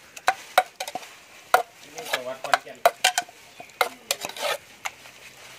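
Metal spoon stirring and scraping minced duck meat in a small aluminium pot, clinking irregularly against the pot's side about two or three times a second, with a broth boiling in the pot beneath.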